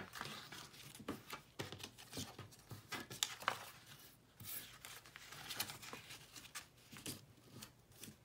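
Paper and card being handled: short, irregular rustles and light taps as a patterned paper piece is slid into a card pocket and pressed flat.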